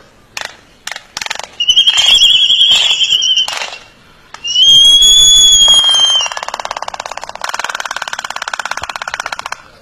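Birds calling: two loud, shrill whistled calls, each about two seconds long, rising slightly then falling, followed by a fast rattling chatter lasting about three seconds. A few sharp clicks come in the first second or so.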